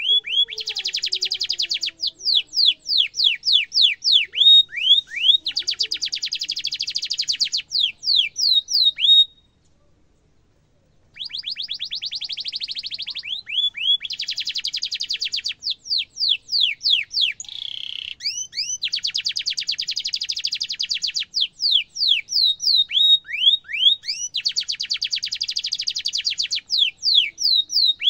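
Domestic canary singing: very fast, sharp trilled rolls lasting a second or two each, alternating with runs of downward-slurred 'cuit cuit' chirps. The song breaks off for about two seconds around nine seconds in, then resumes in the same pattern.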